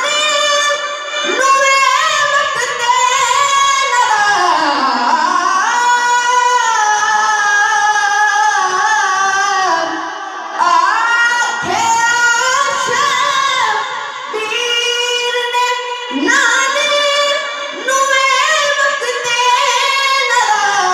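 A man singing an Urdu/Punjabi naat solo into a microphone, holding long notes that slide and waver in pitch. The phrases are broken by short pauses for breath.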